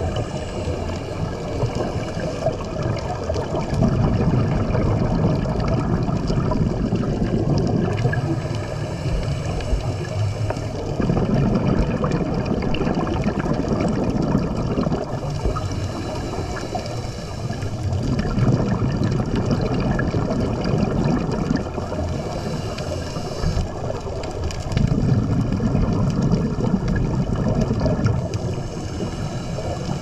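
Underwater scuba-diving sound: a diver's regulator exhaling bubbles in a bubbly rush every three to four seconds, following the breathing rhythm. A faint steady high hum runs underneath.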